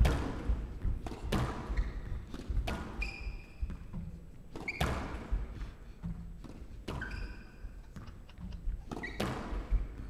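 Squash ball being hit back and forth in a rally: sharp knocks of racket and ball off the walls, about one a second, each echoing in the hall, with short high squeaks of court shoes on the floor between them.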